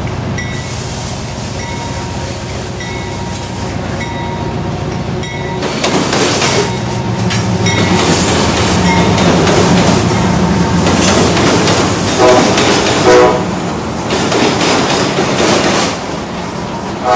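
A CSX freight train's diesel-electric locomotives, a GE AC6000CW leading a Dash 8-40CW and an AC4400CW, rumble on approach and then pass close by, growing much louder about six seconds in. Next comes the steady rolling noise of the loaded hopper cars on the rails. A train horn sounds two short blasts about twelve seconds in.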